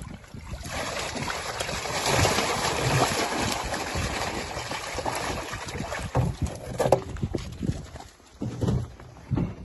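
Water and live trout pouring out of a plastic tub into an ice-fishing hole: a splashing rush for several seconds, ending with a few knocks. Near the end, wind buffets the microphone.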